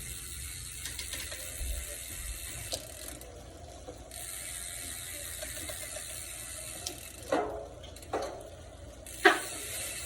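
Origin 8 bicycle hub freewheeling after two years of riding, its pawls ratcheting in a steady high buzz that stops and starts again twice. A few sharp knocks come in the second half, the loudest near the end.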